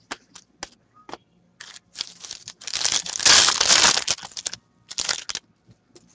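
Foil hockey card pack torn open and crinkled by hand. It is loudest from about two to four and a half seconds in, with a shorter crinkle just after five seconds.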